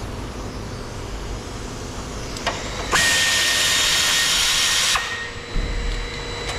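A power drill/driver runs steadily with a whine for about two seconds, starting about three seconds in, backing out a screw holding the fender.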